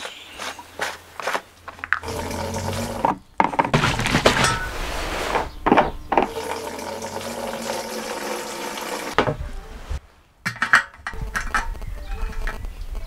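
Fuel pouring from a plastic jerry can into a moped's fuel tank, in a steady stream with a couple of brief breaks. Caps are twisted with a few clicks before and after the pour.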